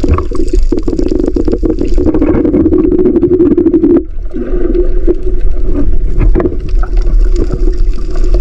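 Underwater sound of a snorkel dive: water sloshing and gurgling against the submerged camera, with a steady low hum and many small clicks. The sound breaks off and changes briefly about four seconds in.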